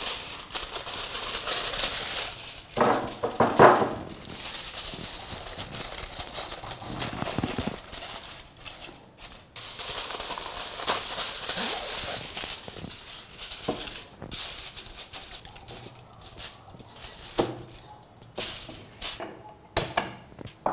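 Aluminium kitchen foil being unrolled, torn and crumpled: irregular crackling and crinkling as it is pressed around a gas stove burner.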